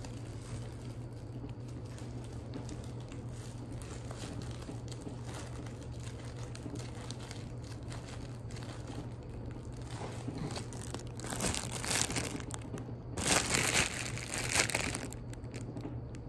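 A clear plastic treat bag crinkling as it is handled, in several loud bursts in the second half, over a steady low hum.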